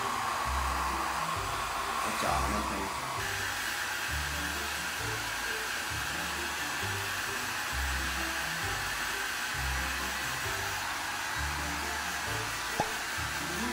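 Handheld hair dryer blowing steadily, a continuous airy hiss, over background music with a steady beat. The dryer's hiss shifts a little about three seconds in.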